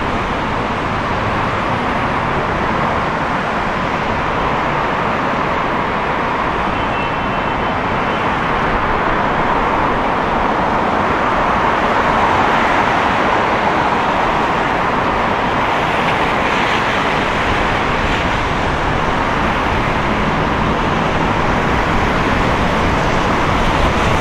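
Steady city road traffic: an unbroken wash of passing cars and engines on a busy street.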